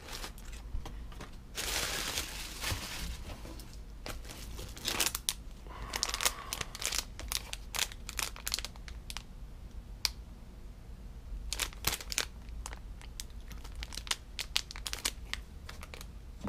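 Hands rustling and crinkling packaging: a clear plastic bag, a paper card and the cardboard box, in irregular rustles with scattered small clicks and taps.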